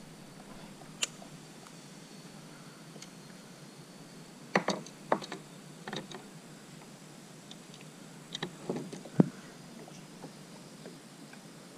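Hunter 285 plastic fishing kayak under way: about seven sharp, short knocks and clicks of paddle and gear against the hull, most of them bunched in the middle stretch, over a quiet background.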